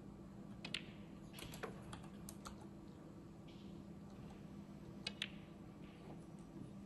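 Sparse sharp clicks of snooker balls, the cue tip striking the cue ball and balls knocking together, each with a brief ring, with a close pair of clicks about five seconds in. A faint steady hum lies underneath.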